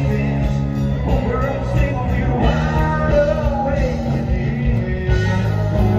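Rock music with singing, loud and steady.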